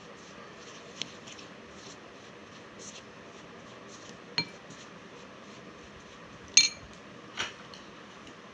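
Metal spoon clinking against a glass bowl while stirring flour and curd: four sharp, ringing clinks, the loudest about two-thirds of the way through.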